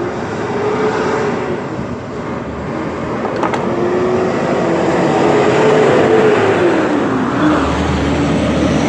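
A motor vehicle's engine running over a steady rushing noise, its pitch wavering, then falling about seven seconds in as the sound peaks and eases off.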